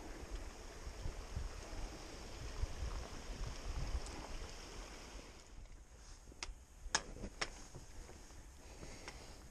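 Wind rumbling on the microphone, easing about halfway through, followed by a few sharp clicks of trekking-pole tips striking granite rock.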